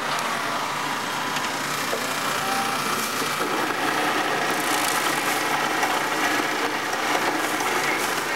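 A motor running steadily, a little louder from about three seconds in.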